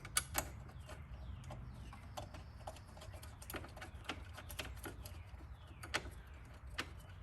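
Irregular light clicks and taps of bolts and hand tools being handled while the bolts are fitted back in by hand, a few sharper clicks standing out near the start and about six seconds in.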